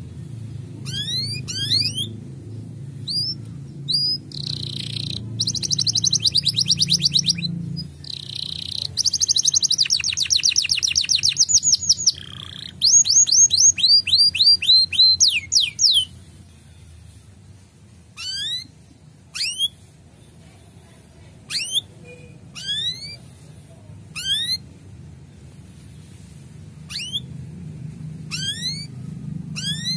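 Male domestic canary chirping with short rising notes about once a second, breaking into fast rolling trills for about twelve seconds in the middle, then back to spaced chirps. A low rumble lies under the start and the end.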